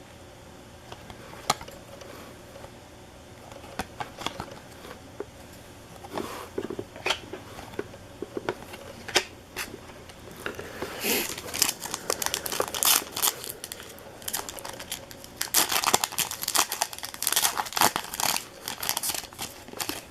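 Trading card pack wrappers being torn open and crinkled, with light clicks of cards being handled; the crinkling comes in two bursts in the second half.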